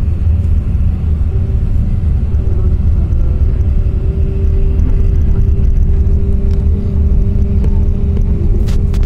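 Cabin noise of a vehicle moving at highway speed: a steady low rumble of tyres and engine with a steady hum above it. A brief click near the end.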